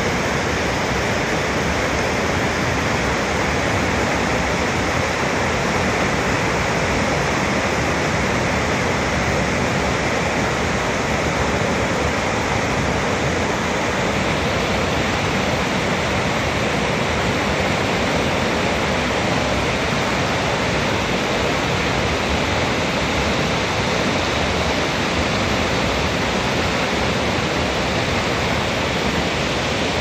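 Rapids of a forest stream rushing over boulders: a steady, unbroken rush of white water.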